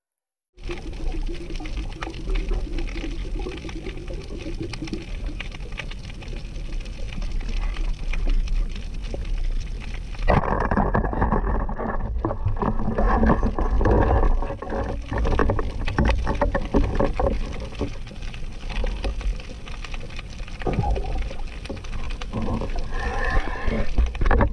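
Muffled underwater noise picked up inside a camera housing: a wash of moving water with dull knocks and bumps. It cuts in after half a second of dead silence and turns louder and rougher about ten seconds in.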